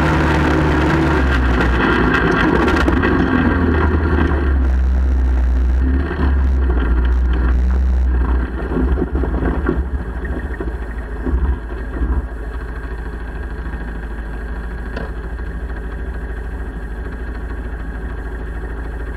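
ATV engine running under way on a dirt trail, then easing off and settling into a steady idle about twelve seconds in.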